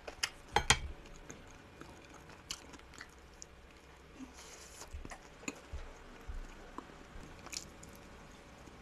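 A person chewing food close to the microphone, with scattered small wet mouth clicks. A few sharper clicks in the first second are the loudest sounds.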